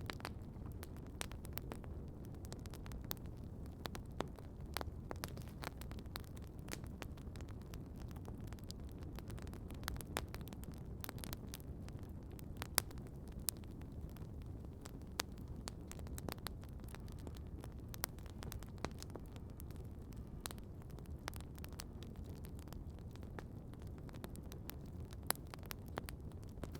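Campfire burning with irregular sharp crackles and pops from the wood over a steady low rush, with two louder pops about halfway through and near the end.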